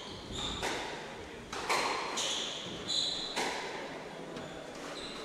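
Squash rally: the ball struck hard by racquets and smacking off the court walls in a string of sharp cracks, roughly one a second, with short high squeaks of players' shoes on the wooden floor in between.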